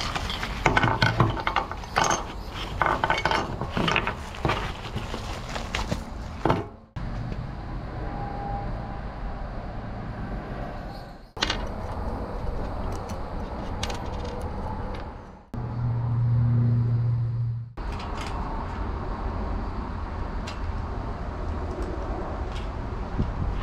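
Assembly handling noise of a drum fan's tube stand: plastic wrapping rustling with dense clicking, then light metal clinks and knocks as small wheels and an axle pin are fitted, broken by several abrupt cuts. A steady low hum lasts about two seconds a little past the middle.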